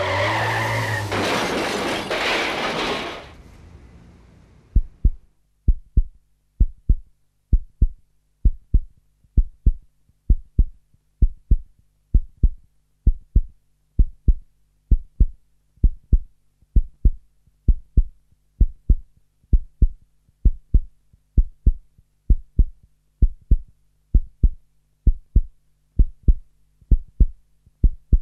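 A loud car skid-and-crash sound effect that fades out about three seconds in, then a heartbeat sound effect: a steady doubled thump about once a second over a faint low hum.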